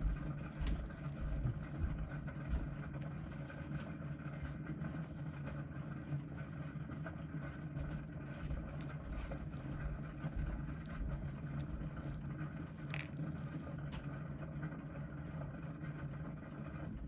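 A steady low electrical hum of amplified room noise, with a few faint clicks of small tools on watch parts, the plainest about thirteen seconds in.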